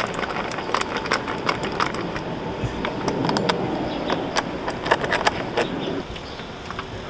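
Camera handling noise: rubbing and many irregular clicks as the camera is moved about by hand, over a steady background hum. The rubbing and clicks drop off about six seconds in, once the camera is held still.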